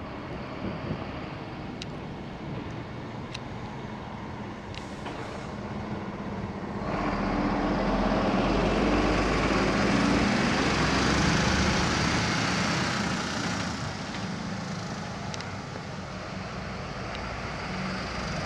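A motor vehicle's engine and tyres passing along a snowy street. It grows louder about seven seconds in, holds for several seconds, then fades.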